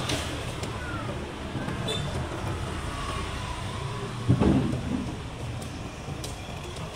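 Steady low rumble of road traffic, with a single dull thud about four seconds in.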